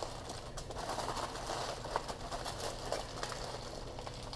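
Aluminum foil crinkling and crackling as a couple of layers are folded and pressed closed over a baking pan, with a faint steady low hum underneath.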